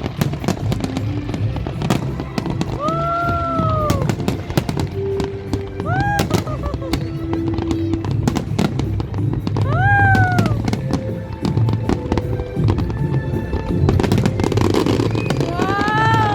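Fireworks going off in a rapid, continuous run of bangs and crackles, over music.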